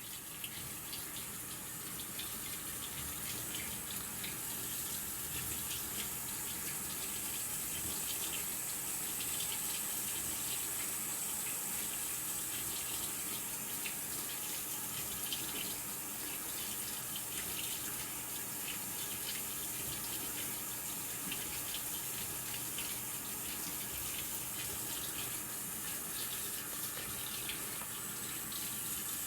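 Maytag Bravos XL top-load washing machine filling with water at the start of a bedding cycle: a steady hiss of water running into the tub.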